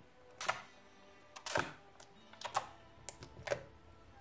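Wet slime squelching and popping as a hand presses and kneads it in a bowl: a series of sharp pops and squishes, roughly one a second, as trapped air pockets burst.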